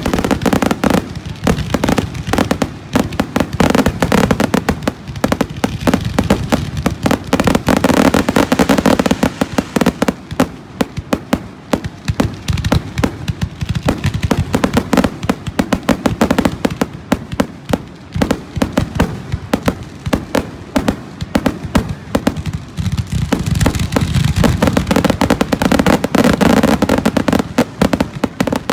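Aerial fireworks going off in a dense, continuous barrage of many bangs and crackles a second, with booming low rumbles that swell and ease.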